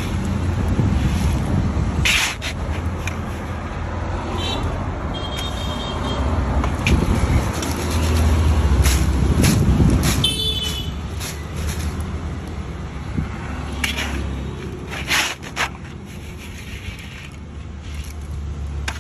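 Fryums being roasted in hot sand in an iron kadai, then lifted out and shaken in a plastic basket to sieve the sand off: repeated scraping and sandy rattling over a steady low rumble.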